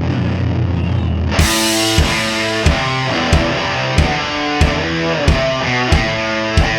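Rock music with distorted electric guitar: a low sustained intro for about a second and a half, then the full band comes in with a steady drum beat.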